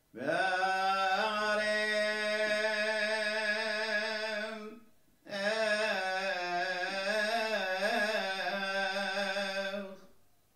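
A man's solo voice singing Syriac Orthodox liturgical chant, the priest's words over the chalice during the Eucharist. It comes as two long phrases on mostly held notes, with a brief break between them and some ornamented turns in the second phrase.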